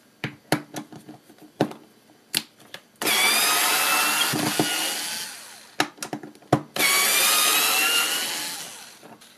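Bosch cordless screwdriver backing screws out of a wooden strip: two runs of motor whine about two seconds each, one about three seconds in and one near seven seconds, each trailing off. Clicks and knocks come before and between them as the bit is set into each screw.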